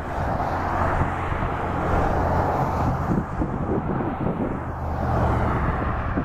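A car approaching along a highway: steady tyre and engine noise, with a low steady hum underneath.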